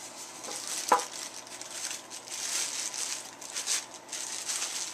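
Clear plastic bag and foam packaging crinkling and rustling as a boxed figure is handled, with one short, sharp squeak about a second in.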